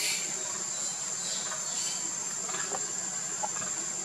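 Insects shrilling: a steady high-pitched drone, with a few pulsing rasps between about one and two seconds in.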